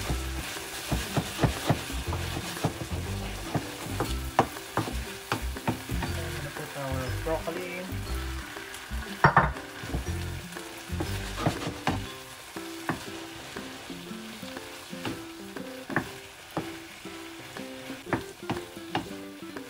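Shrimp and vegetables sizzling in sauce in a hot nonstick frying pan while a wooden spoon stirs them, with frequent knocks and scrapes of the spoon against the pan and one sharper knock about halfway through.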